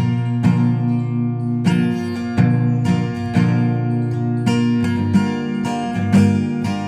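Background music: strummed acoustic guitar with sustained chords changing every second or so.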